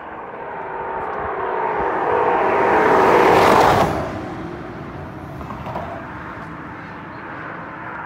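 A vehicle passing on the freeway. Its tyre and engine noise swells for about four seconds, peaks loudly, then falls off sharply. A steady traffic hum is left behind.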